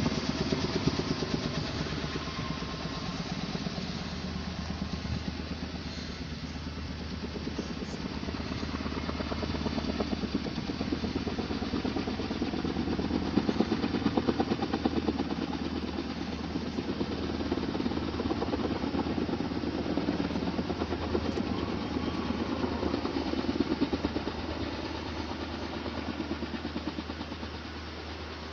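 Steady engine running with a fast pulsing beat and a low hum, swelling and easing a few times.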